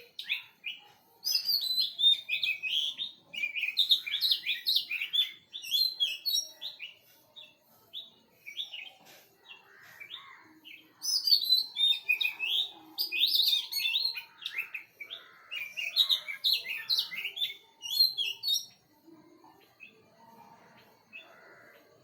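Small birds chirping and twittering in quick runs of short, high notes. The chirping comes in loud bouts with quieter spells between them.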